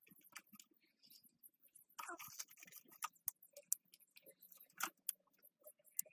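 Faint, irregular crackling and clicking of kindling in a small wood fire inside a cement-coated bucket stove as sticks are pushed in and poked about, with a brief rustling scrape about two seconds in.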